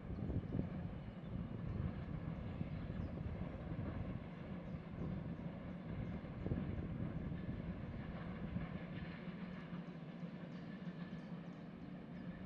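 Trains running on the electrified Semmering railway: a steady low rumble of wheels on rail, easing off a little toward the end.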